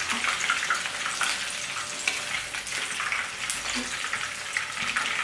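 Chicken leg pieces sizzling and crackling steadily as they fry in hot oil in a pan, with a plastic spatula moving them now and then.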